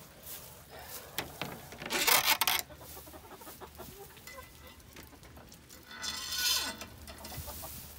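Two loud scraping, rubbing noises, a short one about two seconds in and a longer, grating one about six seconds in, with small knocks and rustles between them.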